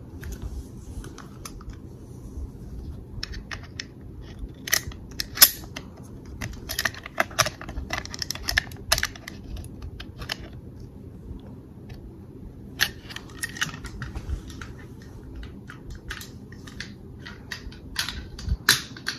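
Metal clicks and rattles of an IWI Uzi pistol's parts being handled, in two spells of quick, irregular clicks with a short pause between them.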